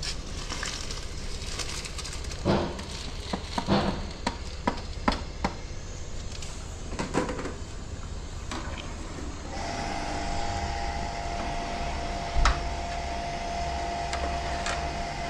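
Rice being washed in a large aluminium pot of water: a long metal skimmer clinks, knocks and scrapes against the pot, with a run of sharp knocks in the first half, over a steady low rumble. About ten seconds in, a steady mechanical whine starts and keeps on.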